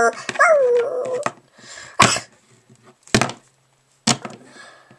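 Plastic Littlest Pet Shop toy figures knocking against a wooden floor: three sharp knocks about a second apart. A brief dog-like whining cry, falling in pitch, comes first, in the opening second.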